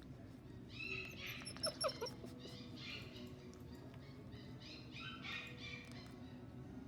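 Bernese mountain dog puppy whimpering and yipping a few times, the sharpest yips about two seconds in.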